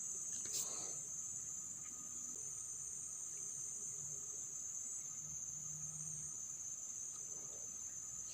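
Steady high-pitched chirring of crickets and other night insects, unbroken throughout, with a single short click about half a second in.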